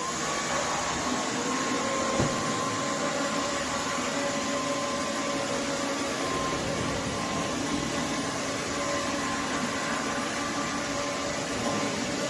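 Roborock F25 LT wet-and-dry vacuum mop running steadily: an even motor and airflow noise with a constant whine, and a brief click about two seconds in.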